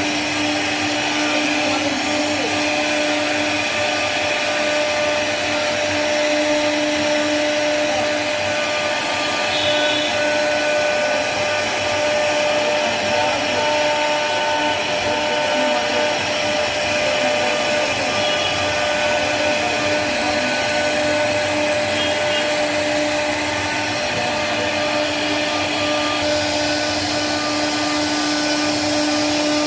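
CNC router spindle running with a steady high whine as its bit carves a relief pattern into a solid wood wardrobe door panel, with the hiss of wood being cut. The lower part of the whine fades for stretches and comes back as the cut changes.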